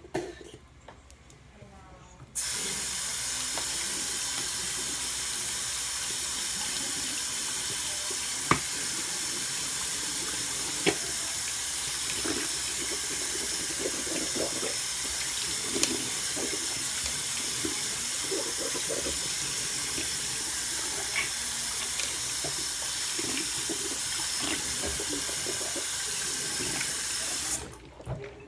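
Bathroom sink tap running steadily, turned on about two seconds in and shut off near the end, with a few sharp clicks over the water.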